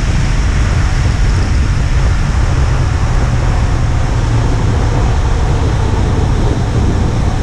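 A 2018 KTM Duke 390's single-cylinder engine and exhaust running at a steady high speed inside a road tunnel, mixed with wind rushing over the camera's microphone. The sound is loud and even, with no revving up or down.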